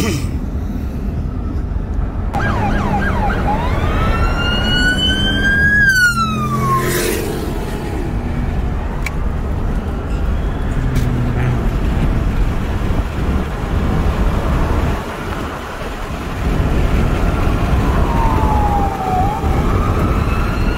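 Police car siren wailing, heard from inside a moving car over steady road noise. About two seconds in the wail rises in pitch, peaks, and falls away, and a shorter falling sweep comes near the end.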